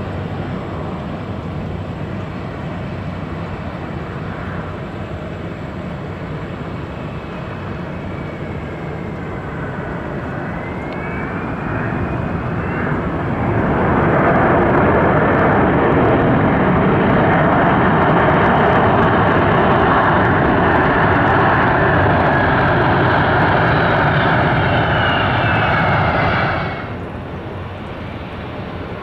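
Twin-engine Airbus A330 jet landing on a wet runway: the engine whine climbs in pitch, then swells to a loud, steady roar of engines and tyre spray as the jet rolls out past. The roar cuts off abruptly about three seconds before the end, leaving the quieter hum of a distant jet on approach.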